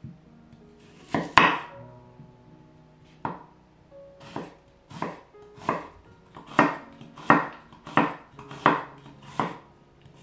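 Chef's knife slicing a peeled onion on a wooden cutting board: about ten separate cuts, each ending on the board. The cuts are spaced out at first and come steadily faster, about one every 0.7 s, in the second half. The first cut is the loudest.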